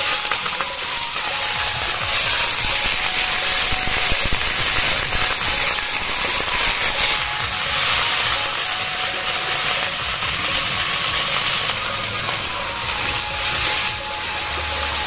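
Cluster beans (guar phali) sizzling and crackling steadily in hot oil in a kadhai as they are stirred.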